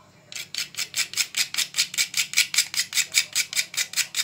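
Whole nutmeg being grated on a small hand grater: quick, even rasping strokes, about five a second, starting a moment in.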